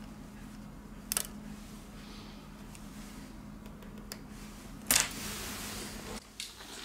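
A few light clicks from a plastic spudger touching a phone's opened circuit board and frame, the two sharpest about a second in and about five seconds in, over a low steady hum.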